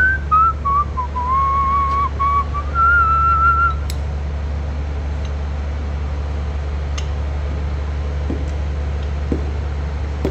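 A person whistling a short, wavering tune for the first few seconds over a steady low hum. After the whistling stops, the hum carries on with a couple of light clicks.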